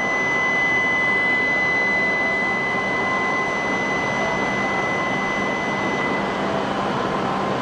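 A steady high electronic warning tone sounds over the steady noise of a train and stops about six and a half seconds in. It is the door-closing alert as the train's doors and the platform gates shut for departure.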